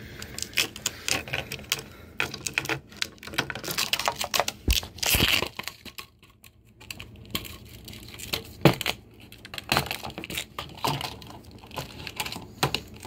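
Duct tape being pulled off the roll and wrapped around a computer motherboard: irregular tearing and crackling, with scattered sharp clicks and knocks and a short lull about six seconds in.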